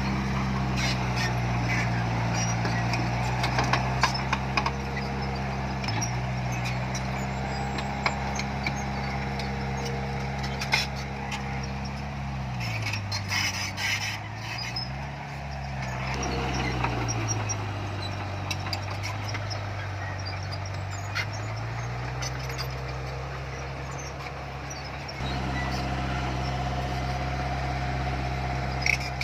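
Heavy diesel engine of earthmoving machinery running steadily, with scattered metallic clanks and clicks. About halfway through its engine speed drops, briefly recovers, then drops again for several seconds before coming back up.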